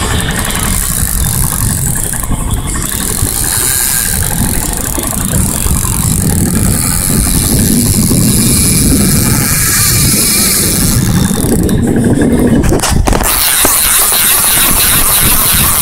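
Loud steady rumble of a boat's engine and wind on a phone microphone out on open water. Near the end, a few knocks and rubbing as the phone is handled and pressed against skin.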